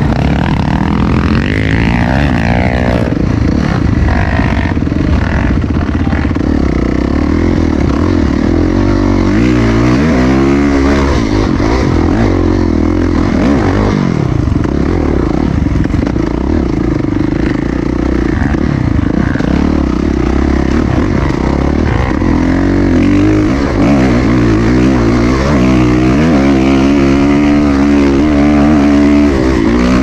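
Dirt bike engine heard from on board the bike, running hard with its pitch rising and falling as the throttle is opened and closed. The sharpest revs come about ten seconds in and again through the last several seconds.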